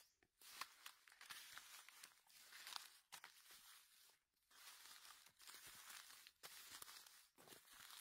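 Faint crunching and rustling of footsteps through dry fallen leaves on a forest floor, with short pauses between bouts of steps.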